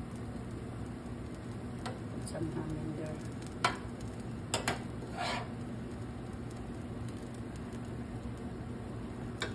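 Omelette sizzling gently in a nonstick frying pan while a metal serving spoon spoons topping onto it, with several sharp clicks of the spoon against the pan and a short scrape about two to five seconds in.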